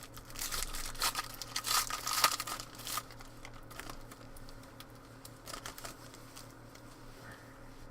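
Trading card pack wrapper being torn open and crinkled, dense crackling for about the first three seconds, then a few lighter crinkles and clicks as the cards are handled.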